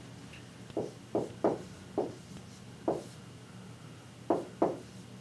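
Dry-erase marker writing on a whiteboard: about seven short, separate strokes at an uneven pace as terms are written out.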